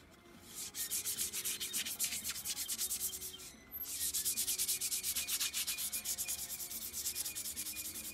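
Cloth rag rubbing oil onto a cherry bowl spinning on a wood lathe: a rapid, rhythmic swishing as the rag drags over the turning wood, breaking off briefly about three and a half seconds in as the rag is lifted, then resuming.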